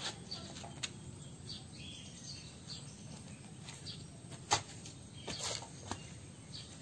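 Faint outdoor ambience: a steady low background noise with a few short bird chirps and several brief clicks, the sharpest about two-thirds of the way through.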